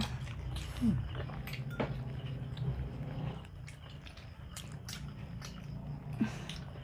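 People chewing and biting food close to the microphone, with scattered crisp clicks and mouth sounds. A few short louder sounds come near the start and just before the end.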